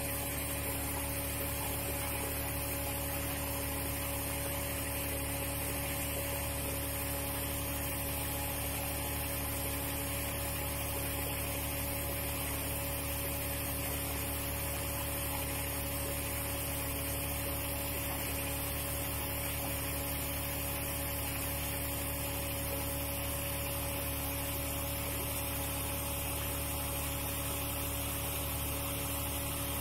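Gold washing plant machinery (water pumps and rotating trommel) running: a steady hum with a constant tone and an even hiss, unchanging throughout.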